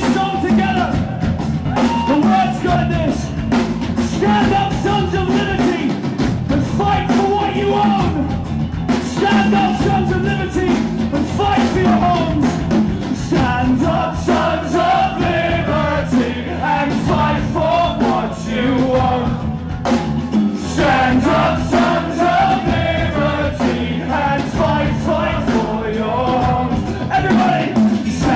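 Live rock band playing loudly, with singing over it.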